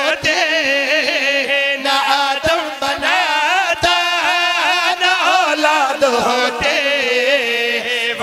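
A man's voice singing a long, drawn-out, wavering melodic phrase: the zakir chanting a line of Urdu verse in a sung, melismatic style.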